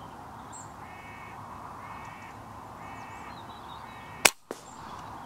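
A crow-family bird gives four harsh calls about a second apart, then a single sharp shot from a Theoben MFR .22 pre-charged air rifle rings out about four seconds in.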